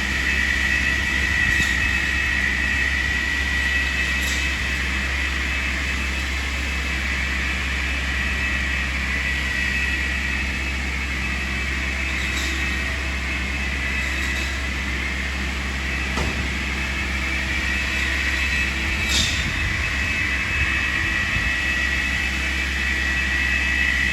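Tree-trimming skidder's engine and hydraulics running at a distance, a steady drone with a constant high whine over it.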